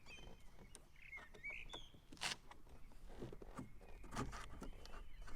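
Light plastic clicks and taps, with a few short high squeaks, as a car sunshade frame is handled and pressed against the rear door window frame. The sharpest knock is about two seconds in.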